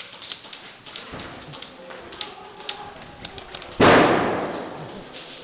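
Airsoft gunfire: many sharp cracks and taps of shots and BBs striking surfaces. About four seconds in comes a single loud bang whose noise dies away over a second or so.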